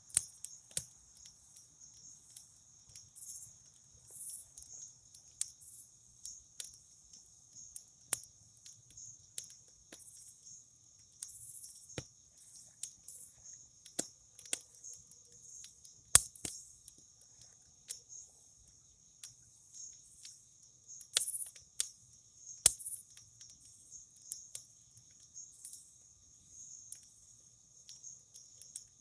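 Campfire crackling with sharp, irregular pops, the loudest about 16 seconds in and again near 23 seconds, over a steady high-pitched chorus of chirping crickets.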